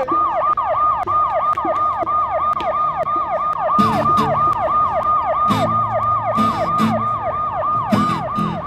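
Emergency-vehicle siren sounding a fast cycle of quick downward sweeps, about four a second. Short strummed guitar chords come in about four seconds in.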